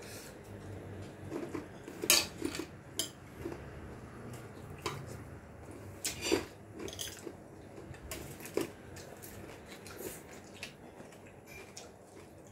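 Spoons and forks clinking and scraping on plates and metal bowls while eating, in irregular clinks a second or two apart. The loudest clinks come about two seconds and six seconds in.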